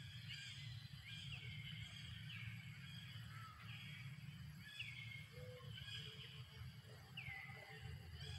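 A high call repeated about once a second, each call sliding down in pitch and then levelling off, over a low steady rumble.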